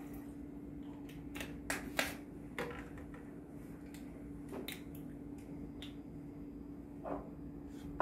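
Scattered sharp clicks and crackles of a plastic water bottle being handled and its cap twisted open, with a light knock near the end as a glass tumbler is touched on the table. A steady low hum runs underneath.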